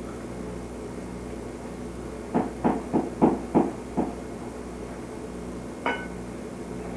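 A quick run of about six sharp knocks, a little over two seconds in, over a steady background hum. Near the end comes a single clink with a brief ringing tone.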